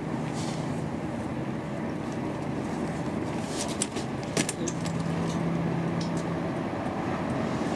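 Metal-framed folding lawn chair tipping over and collapsing, a quick cluster of clicks and a knock about four seconds in, over the steady hum and hiss of old camcorder sound.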